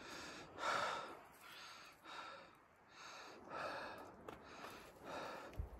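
A person breathing hard from the effort of climbing a steep uphill path, each breath a soft rushing swell, the strongest about every second and a half.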